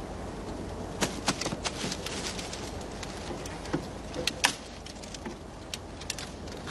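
Scattered light clicks and taps over a steady hiss, as a field radio set is worked by hand.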